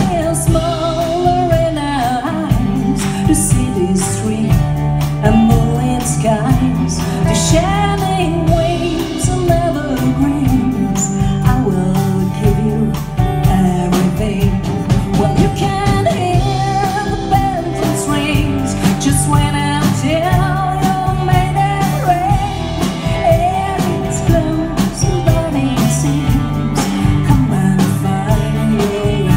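Live country band playing a song: a woman sings the melody into a microphone over electric guitar and drum kit.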